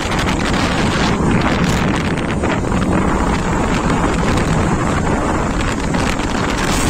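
Steady, loud wind rushing over the microphone of a rider on a moving motorbike, with the ride's low rumble underneath.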